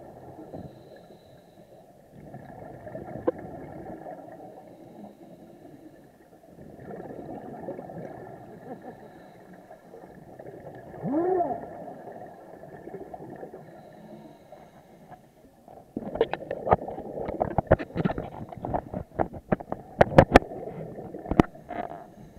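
Scuba exhaust bubbles gurgling from a diver's regulator in breaths of a few seconds each, heard through an underwater camera housing. A short rising and falling tone sounds a little past halfway, and a run of sharp clicks and pops follows in the last several seconds.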